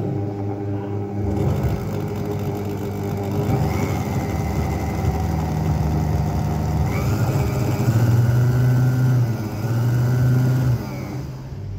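Juicer motor driving a homemade mini lathe, its speed turned up and down on a variable speed controller. The whine climbs in pitch a few seconds in and again about halfway, is loudest shortly after, and drops away near the end.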